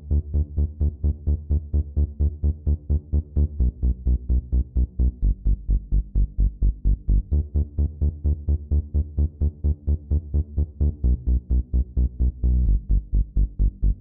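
Electronic dance music with a fast, even pulsing beat of about four to five beats a second, heavy in the bass.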